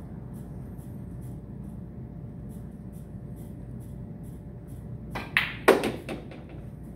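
A pool shot: the cue tip strikes the cue ball, then a sharp, loud clack of ball hitting ball about half a second later, followed by a few quick, fading knocks of balls against rail and pocket. A steady low room hum runs underneath.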